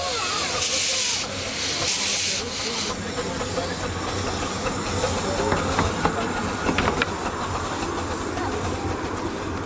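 Small 15-inch gauge saddle-tank steam locomotive getting under way with its cylinder drain cocks open: loud hissing steam in pulses for the first few seconds, which then stops. The engine runs on with a low rumble and a few sharp clicks near the middle.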